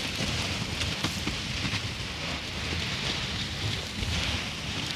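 Erupting volcanic crater spattering lava: a continuous low rumble under a crackling, splashing hiss with a few small pops, a sound like the ocean.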